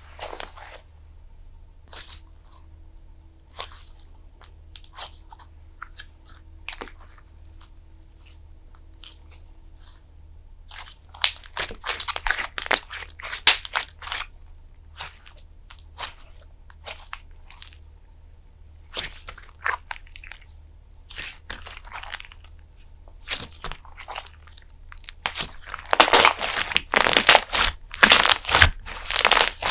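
Fluffy slime being pressed and worked by hand, giving crisp crackling, crunchy sounds. The crackles come scattered at first, then in dense, louder runs about a third of the way in and again near the end.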